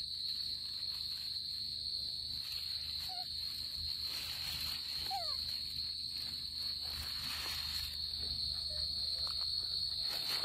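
A steady high-pitched chorus of insects chirring without a break, with a couple of faint short chirps about three and five seconds in.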